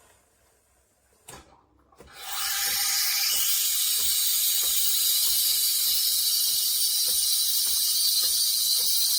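De'Longhi La Specialista Touch espresso machine's steam wand starting up in a pot of milk on automatic frothing: a click, then a steady loud hiss of steam about two seconds in, with faint regular ticking underneath.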